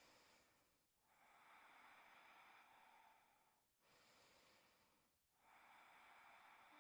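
Near silence with two very faint, slow breaths, each a long, soft rush of air.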